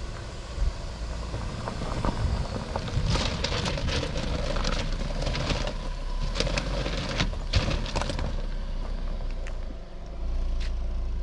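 A car driving on a dirt road: a steady low engine and tyre rumble with many short knocks and rattles from the rough surface. Near the end the knocks die away, leaving a steady hum.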